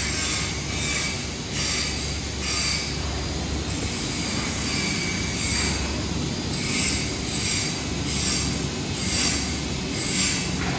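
Factory machinery noise: a steady low hum under a high-pitched hiss that swells and fades about once a second.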